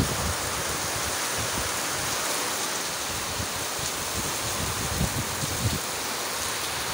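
Heavy rain falling steadily, a dense even hiss of the downpour. A couple of brief low thumps about five seconds in.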